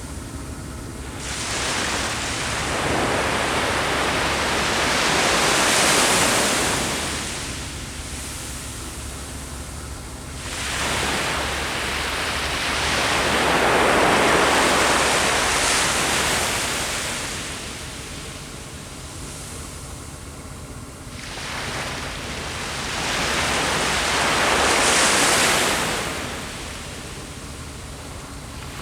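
Ocean waves breaking on the shore: three waves in turn, each surge of surf building, then washing out and fading over several seconds.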